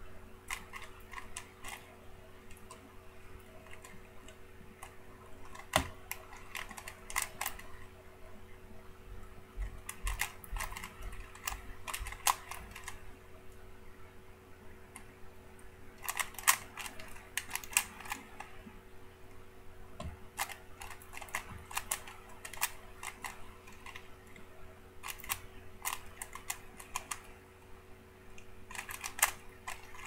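A 3x3 Rubik's cube being turned fast by hand: bursts of rapid plastic clicks as the layers snap round, broken by short pauses. A steady faint hum runs underneath.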